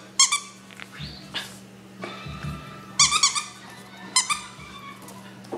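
A small pet animal giving rapid, high-pitched calls in several short bursts, clustered near the start, about three seconds in and again a second later, over a steady low hum.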